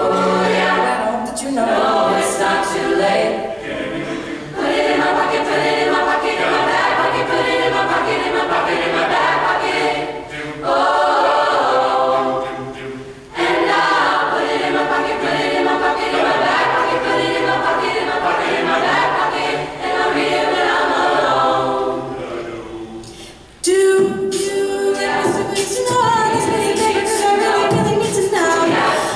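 Mixed choir of men and women singing a cappella, with a soloist on a microphone over the group. The singing goes in phrases, with brief drops about ten, thirteen and twenty-three seconds in.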